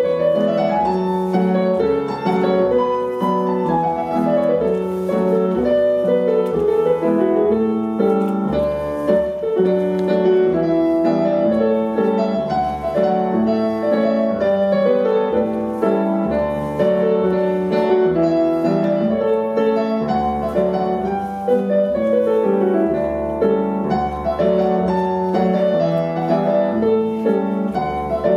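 Piano playing a lively Scottish country dance tune at a steady tempo, without a break.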